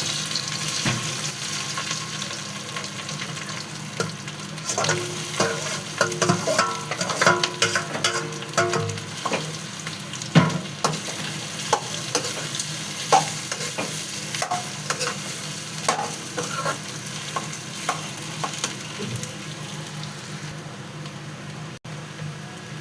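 Food sizzling in hot oil in a pan while a spoon stirs and scrapes it, with many sharp clicks and knocks of the spoon against the pan. These are busiest in the first half and then thin out to a steady sizzle.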